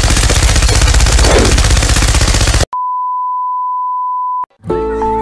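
Rapid automatic machine-gun fire that cuts off abruptly about two and a half seconds in, followed by the steady single-pitch test-tone beep that goes with TV colour bars for about two seconds. Near the end a children's song starts.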